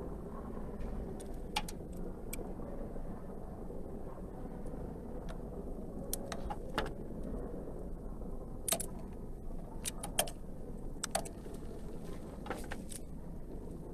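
A bar of soap being carved with a small blade: irregular sharp clicks and scrapes as slices are cut away, over a steady low background hum.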